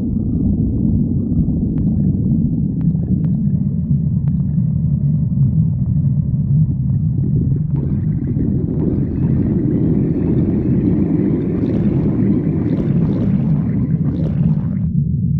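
A person's stomach growling: a loud, continuous low rumble. From about eight seconds in it turns brighter and busier, and that brighter part cuts off abruptly near the end.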